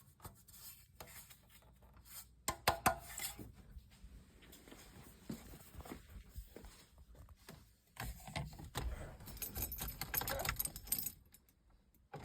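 Faint scattered clicks and scraping, a little louder about two and a half seconds in and again for a few seconds near the end.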